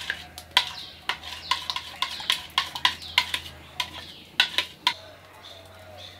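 Metal spoon stirring a thick sauce in an enamel bowl, clinking against the sides about two or three times a second, stopping about five seconds in.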